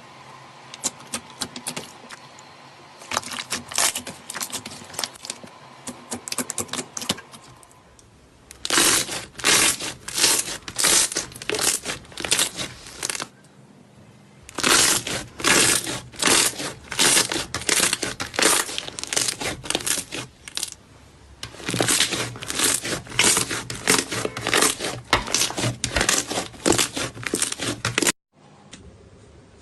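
Slime being squeezed and worked by hand, giving dense runs of crackling, popping clicks. It comes in several short takes with abrupt cuts between them, and the clicking gets louder from about nine seconds in.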